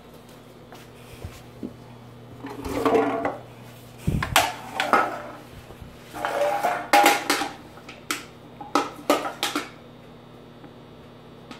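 Aluminium beer can clattering and rolling across a hardwood floor as a small dog paws and chases it, in four bursts of metallic rattling over several seconds.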